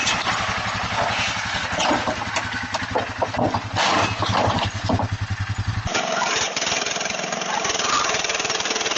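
A small engine running with a fast, even chugging for about six seconds, then the sound cuts abruptly to a steady noisy rush.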